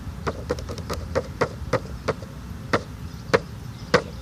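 A run of about a dozen sharp, irregularly spaced taps and clicks, the loudest ones in the second half.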